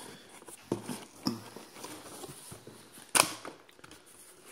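Cardboard shipping box being opened by hand: flaps folded back and kraft packing paper rustled, with a few sharp knocks, the loudest about three seconds in.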